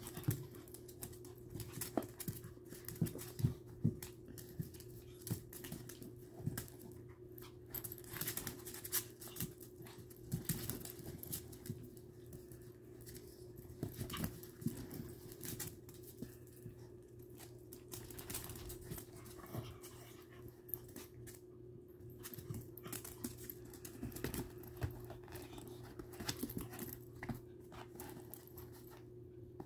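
Two small dogs play-wrestling on a wood-laminate floor: irregular scuffling and quick claw clicks, with panting.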